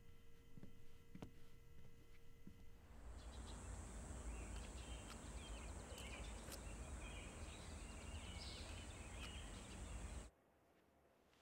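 A faint steady indoor hum with a few soft clicks. About three seconds in it gives way to outdoor ambience: scattered bird chirps over a steady high drone and a low rumble, which cuts off abruptly about ten seconds in.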